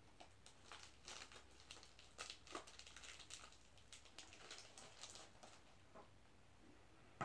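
Faint crinkling and rustling of a small plastic packet of cellphone ejector pins being handled and opened, in scattered short crackles.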